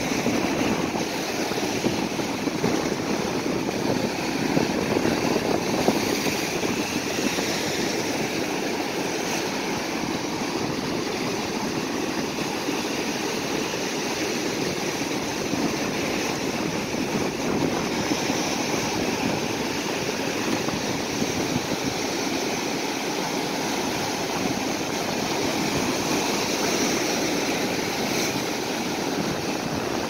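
Ocean surf breaking on a rocky shore: a continuous, steady wash of waves that swells a little now and then.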